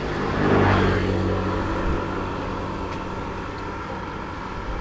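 A motor vehicle's engine running close by, swelling loudest about half a second in and then settling into a steady hum.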